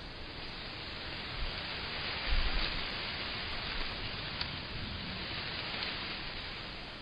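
Outdoor street ambience: a steady hiss that swells through the middle and eases off near the end.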